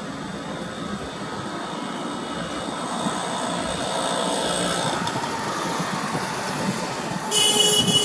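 Passing train: a steady rumble that slowly grows louder, with a faint whine in the middle, then a sudden loud shrill squeal about seven seconds in.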